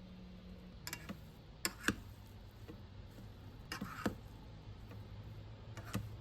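Scattered light clicks and taps of kitchen utensils, some in quick pairs, over a low steady hum.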